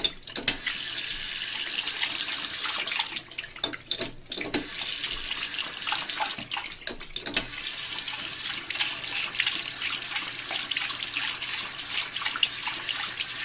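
Bathroom sink faucet running, a steady splash of water into the basin, with the stream briefly broken a few seconds in while a dog drinks from the tap.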